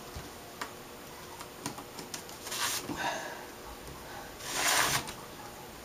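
Metal parts of an LCD panel being handled and slid back into place: a few light clicks, then two short scraping swishes, the second and louder one near the end.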